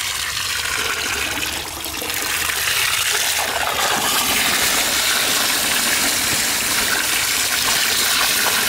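Water gushing from a garden hose into a plastic colander full of cut buffalo liver, with hands sloshing and stirring the pieces as they are rinsed. A steady rushing that grows a little louder about two and a half seconds in.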